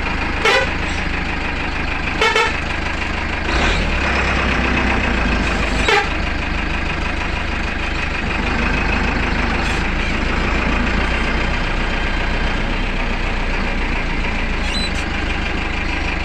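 Bus engine running steadily while driving, heard from inside the driver's cab, with short horn toots about half a second, two seconds and six seconds in.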